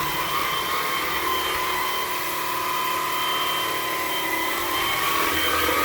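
Hoover OnePwr Blade cordless stick vacuum running steadily on a hard floor, a constant motor whine over the rush of suction, with the brush bar turned down to its hard-floor speed.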